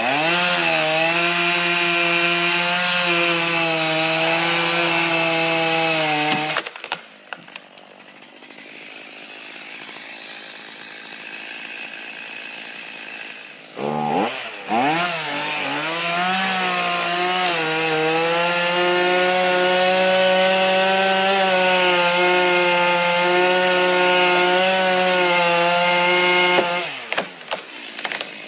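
Chainsaw engine running steadily at high revs, then dropping away suddenly about a quarter of the way in. After a quieter stretch it revs up again around halfway and runs steadily at high revs until it stops near the end.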